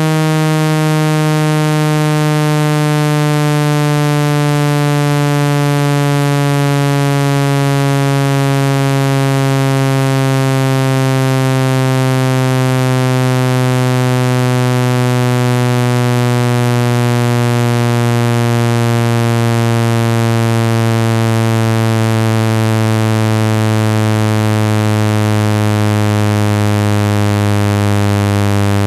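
Speaker-cleaning tone for shaking dust out of a phone speaker: a loud, buzzy low synthesized tone, rich in overtones, gliding slowly down in pitch.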